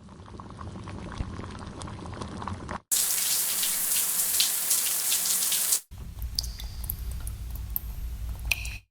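Three water sound effects back to back, separated by abrupt cuts. First, boiling water bubbling as it fades in. About three seconds in comes a louder, steady shower spray, and about six seconds in, water dripping in a cave, with scattered drips over a low rumble.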